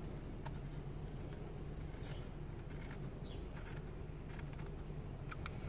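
Scissors snipping fabric: a few faint, short cuts at irregular intervals while trimming and notching a curved seam allowance.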